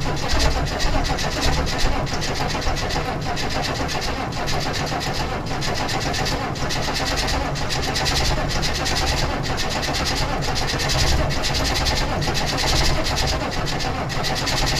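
Straight-piped 6.5 L V8 turbo diesel of a 1996 Chevrolet K1500 in a hard cold start, cranking over and starting to fire. It is slow to catch because of worn-out glow plugs in the cold.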